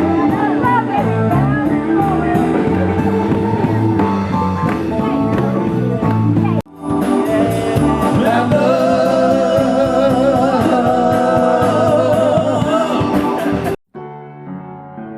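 Rock band playing with a singer, cymbal ticks keeping a steady beat. The music cuts off abruptly halfway through and resumes, then drops out near the end and gives way to quieter piano music.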